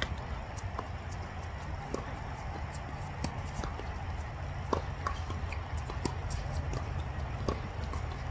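Tennis ball being struck and bouncing on the court in an irregular series of sharp knocks, a few louder than the rest, over a steady low rumble.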